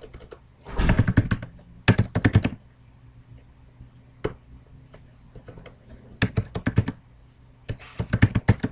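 Typing on a computer keyboard: several quick bursts of keystrokes separated by short pauses, with a single lone keystroke about halfway through.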